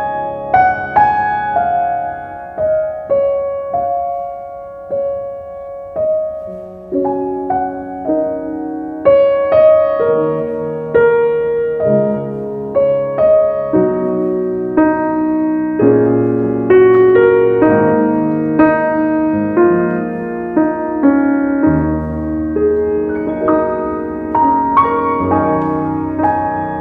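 Slow, gentle solo piano background music, single notes and soft chords struck one after another and left to ring.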